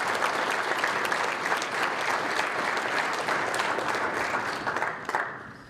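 Audience applauding: many hands clapping together, dying away near the end.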